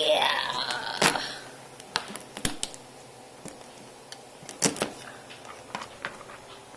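Kitchen knife cracking and snipping through cooked crab shell on a plastic cutting board: scattered sharp clicks and cracks, the loudest a little after a second in, with a brief gliding pitched sound at the very start.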